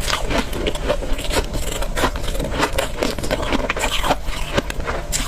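Crunching and chewing of frozen freezer frost ice, a dense run of crackly crunches.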